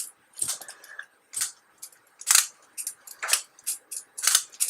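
Irregular sharp, high-pitched clicks and scrapes of small plastic and metal RC car parts being handled and fitted by hand, about a dozen of them with short gaps between.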